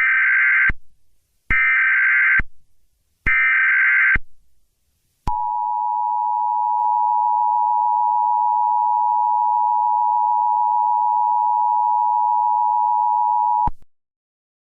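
Emergency Alert System opening: three short bursts of warbling digital data tones (the SAME header), then the EAS attention signal, a steady two-tone beep held for about eight seconds that cuts off suddenly.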